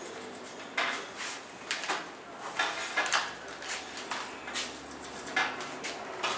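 Irregular light knocks and clatter of hard parts being handled, about a dozen short sharp strikes spread over several seconds.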